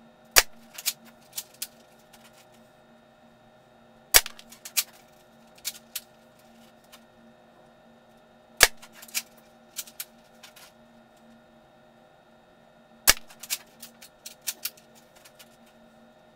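D Boys KAR98 spring-powered airsoft rifle shooting four shots about four and a half seconds apart. Each shot is a sharp crack followed by a few lighter clicks.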